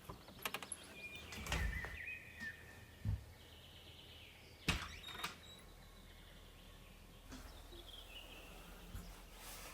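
Birds chirping faintly over outdoor ambience, broken by a few clicks and knocks of handling or a door. The loudest is a sharp knock about five seconds in.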